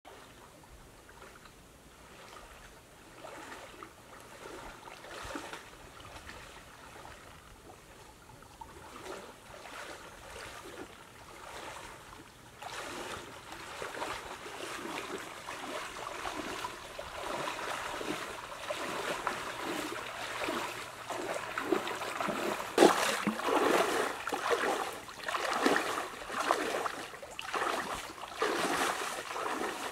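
River water splashing with each step of a person wading knee-deep, in a steady walking rhythm. Faint at first, it grows louder about halfway through and louder again in the last several seconds as the wader comes close.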